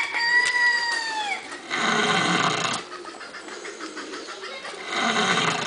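Pig snoring while asleep: a rasping snore about every three seconds. A high whistling tone runs through the first second or so, falling slightly in pitch.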